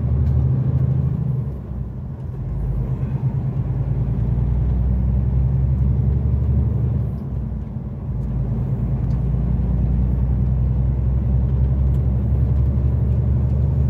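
Heavy truck's diesel engine and road noise heard from inside the cab while driving at speed: a steady low rumble that dips briefly about two seconds in and again about eight seconds in.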